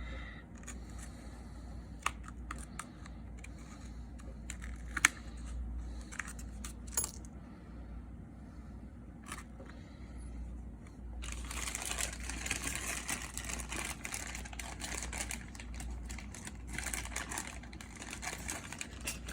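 Small hard clicks and taps of a metal opening tool against an iPhone's frame and screen. From about halfway through, a continuous scratchy scraping with many small clicks as the tool works along the screen's edge.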